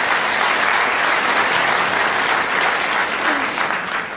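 Theatre audience applauding, dying away near the end.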